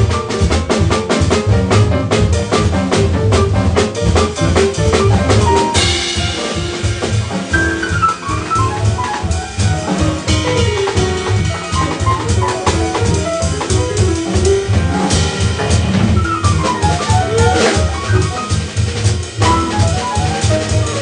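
Live jazz from piano, upright double bass and drum kit: busy drumming with cymbal crashes, and quick runs of piano notes over it.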